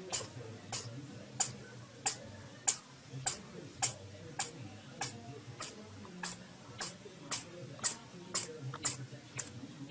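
An animal sneezing over and over in short, sharp sneezes, about one every 0.6 seconds.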